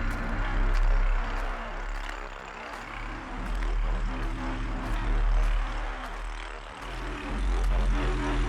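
A low droning rumble with sustained tones that swell and fade every few seconds, like an ominous suspense drone.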